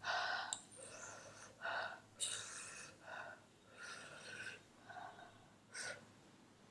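Close-miked breathing: a run of about eight short, sharp sniffs and puffs of breath in uneven succession.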